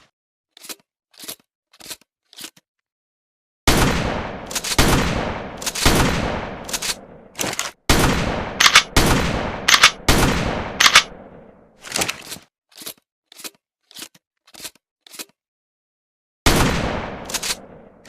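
Pump-action shotgun firing, with a series of loud blasts that ring out and fade, mixed with short sharp clacks of the pump slide being worked. Several stretches hold only the clacking, about two a second, with no shots.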